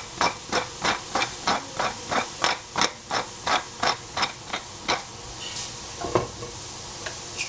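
Mushrooms being seasoned and stirred in a frying pan: a run of regular crisp strokes, about three a second, that stops about five seconds in, over a faint sizzle.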